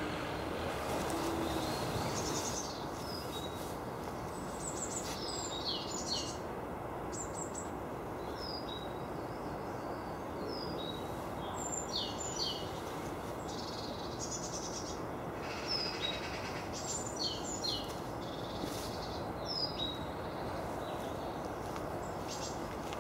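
Woodland birds calling: short, high, downward-sweeping notes scattered every second or two, over a steady background rush.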